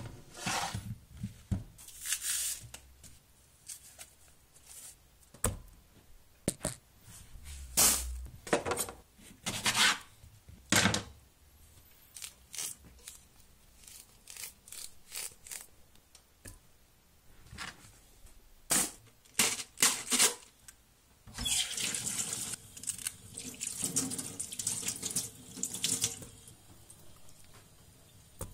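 Water splashing and clattering in irregular short bursts, with a denser, busier stretch in the last third.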